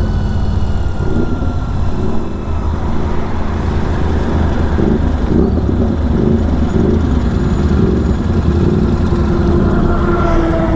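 Superbike riding at speed on the road, its engine and exhaust under a steady low rumble of wind on the microphone.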